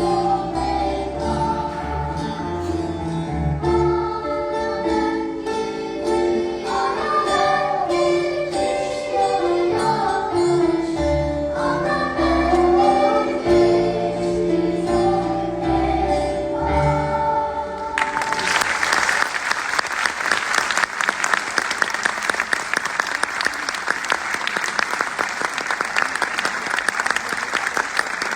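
Children's choir singing in parts with instrumental accompaniment. The song ends about two-thirds of the way through, and an audience breaks into sustained applause.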